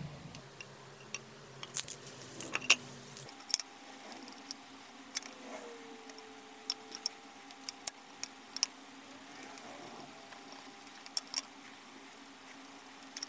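Small metal objects clinking and clicking: about twenty sharp, irregular clicks, bunched in the first few seconds and again mid-way, over a faint steady hum.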